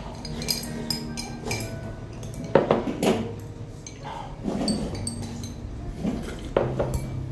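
Eating at a table: ceramic bowls and metal chopsticks clinking, with slurping as broth is drunk and noodles are sucked up from a small bowl. The loudest moments come in short bursts about two and a half, four and a half and six and a half seconds in.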